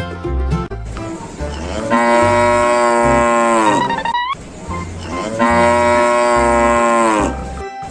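Cow mooing twice over background music: two long moos, each dropping in pitch at the end, with a brief rising glide between them.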